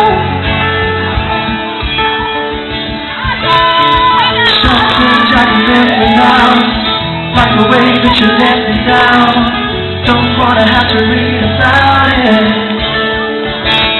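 Live pop-rock band playing with guitar, and voices singing over the music.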